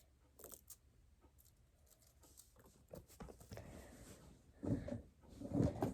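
Faint scattered clicks and rustles of small plastic fidget toys being handled, with a couple of louder thuds near the end.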